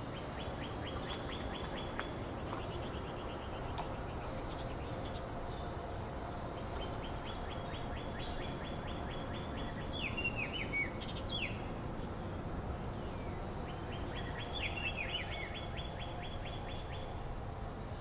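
Wild songbird singing: a rapid, dry, even trill repeated three times, with a few short falling chirps in between, over a steady low background hum.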